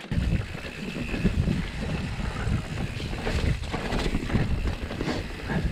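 Wind buffeting the microphone, an uneven low rumble that rises and falls in gusts.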